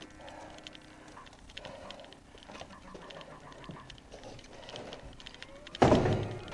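Faint patter of footsteps and small knocks as an old wooden door with glass panes is opened and stepped through. About six seconds in there is one loud thump that dies away within half a second.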